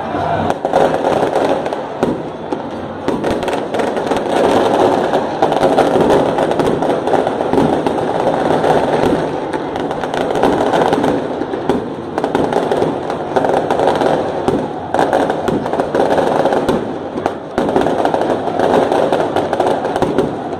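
Loud crowd noise from packed football stadium stands: a steady, dense wash of fan noise with many sharp cracks and pops through it.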